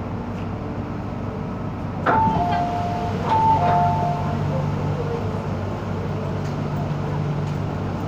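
MTR M-Train's passenger-door chime sounding as the doors open at a station: a clunk, then a high-then-low two-note chime played twice, about a second apart, over the steady rumble of the car.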